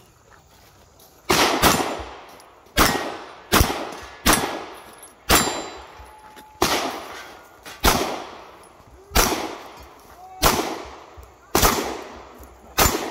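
An FN 509 Tactical 9mm pistol firing a string of about eleven shots, spaced roughly a second apart, each shot followed by a short echo.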